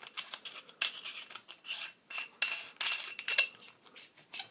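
Clicks and scraping of metal and plastic as 18650 lithium-ion cells are handled and fitted into a flashlight, a rapid irregular run of small knocks and rasping rubs.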